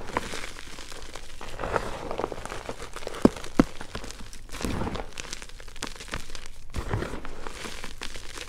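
Hands squeezing and crushing crumbled yellow gym chalk in loose chalk powder, a continuous soft crunching of the powdery chalk. Two sharp snaps stand out a little over three seconds in.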